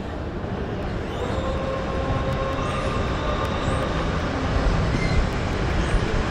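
Metro train running, with a steady rumble that grows a little louder and a thin whine that comes in about a second in.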